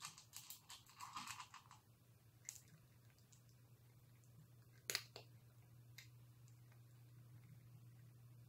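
Cat crunching dry kibble, a quick run of small crisp crunches for the first two seconds, then a few scattered clicks, the sharpest about five seconds in.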